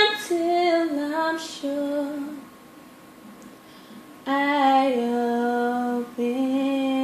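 A woman's voice singing unaccompanied: a short phrase of held notes, a pause of about two seconds, then two long sustained notes.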